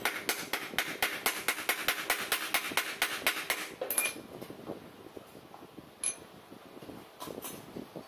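Rapid light metal-on-metal tapping, about five taps a second, at the universal-joint yoke of a propeller shaft being taken apart. The tapping stops about four seconds in with a short metallic ring, and a few scattered clinks follow.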